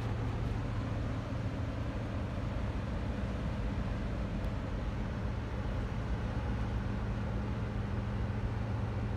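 Ship engine droning steadily, with a hiss of wind and water over it; a second, higher hum joins about two seconds in.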